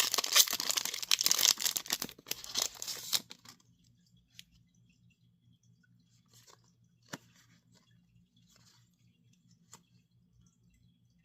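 Foil booster pack wrapper being torn open and crinkled, loud for about the first three and a half seconds, then a few faint clicks.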